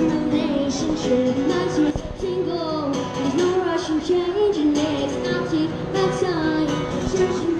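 Street busker singing into a microphone, amplified through a portable speaker: a high voice carrying a wavering melody over backing music.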